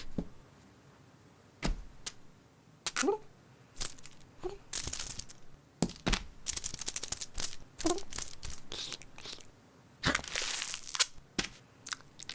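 Cartoon sound effects: a string of sharp clicks and knocks mixed with bursts of rustling, crinkling or tearing noise, and a couple of brief vocal sounds, one about three seconds in and one near eight seconds.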